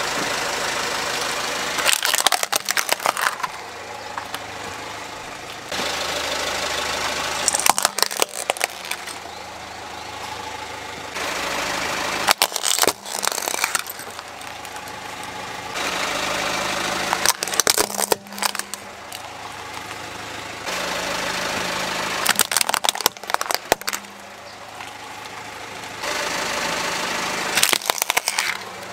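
Car tyre crushing plastic toys six times, each crush a short cluster of sharp cracks and crunches, coming about every five seconds. A steady car engine hum runs between the crushes.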